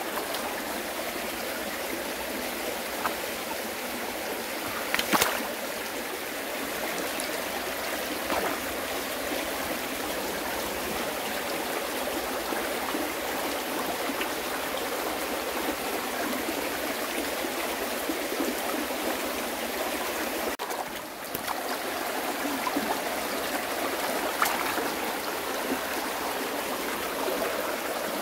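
Steady rush of flowing water, with a few brief knocks.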